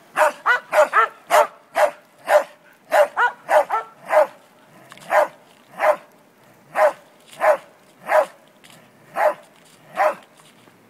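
A dog barking repeatedly with sharp single barks, quick and bunched in the first four seconds, then slowing to a steady bark about every 0.7 seconds.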